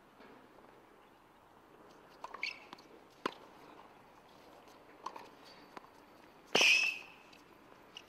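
Tennis rally on a hard court: sharp racket-on-ball hits a few times, with short high squeaks of shoes on the court. The loudest, a hit with a sharp squeak, comes about six and a half seconds in.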